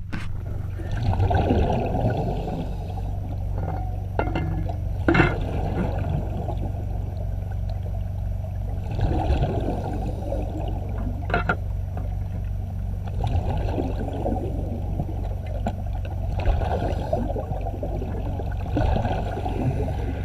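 Underwater recording: a steady low hum, with a gush of bubbling noise swelling about every four seconds and a few sharp clicks, one just after the four-second mark and one about eleven seconds in.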